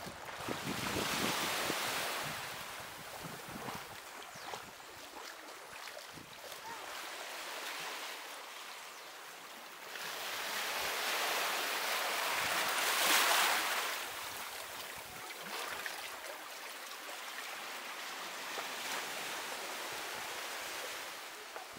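Sea waves breaking and washing up on a beach in slow surges. The largest surge comes a little past halfway, after a smaller one near the start.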